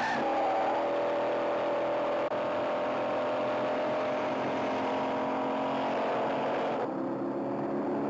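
Car engine running hard at speed with a steady, sustained note. About seven seconds in, the note shifts lower.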